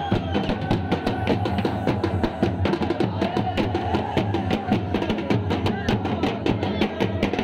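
Music of fast, dense drumming with a held, wavering melody line above the beat.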